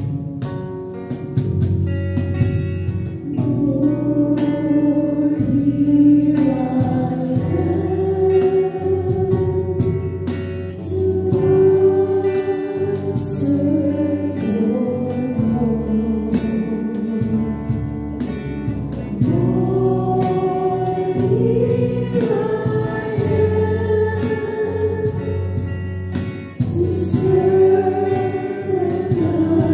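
Voices singing a slow worship song to strummed acoustic guitar, each note held for a second or two as the melody steps up and down.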